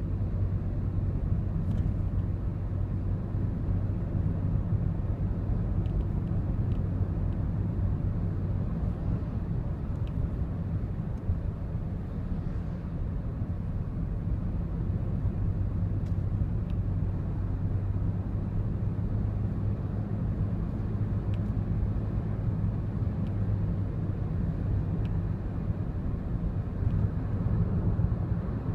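Steady drone of a Daihatsu Wake kei car heard from inside the cabin while driving, with faint, irregular ticks or rattles every few seconds: the abnormal noise coming from around the driver's seatbelt.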